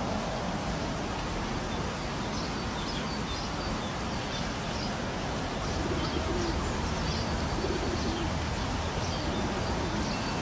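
Birds calling outdoors over a steady background hiss: a dove cooing low, twice, around the middle, while a small bird gives short high chirps every second or so.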